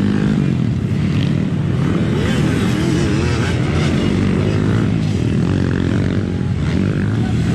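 Several motocross dirt-bike engines running and revving on the track, the pitch rising and falling as the riders work the throttle.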